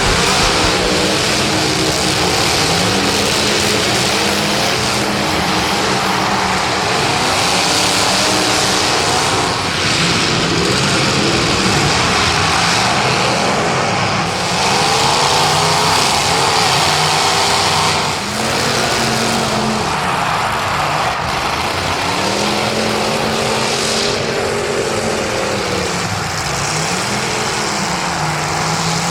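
Several demolition derby cars racing, their engines revving up and down over and over.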